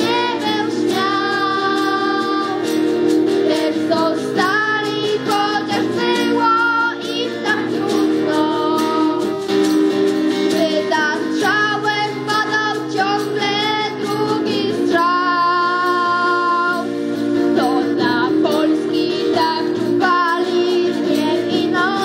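A girls' choir singing a song to strummed acoustic guitar, with a wooden transverse flute playing the melody and holding long notes.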